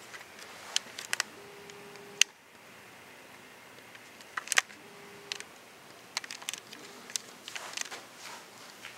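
Handheld camcorder handling noise: scattered sharp clicks and taps, with a brief steady whine twice, about a second and a half in and again near the middle.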